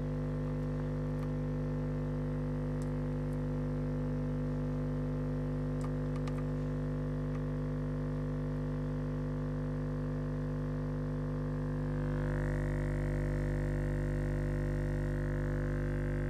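A steady low test tone played through a JL Audio 10W7 subwoofer driven by a JL 500/1 amplifier. It gets a little louder about twelve seconds in as the amplifier's gain is turned up and the amplifier draws more current.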